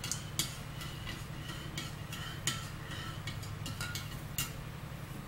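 A metal spoon stirring hot cocoa in a ceramic mug, clinking against the inside at irregular intervals, a dozen or so times, over a low steady hum.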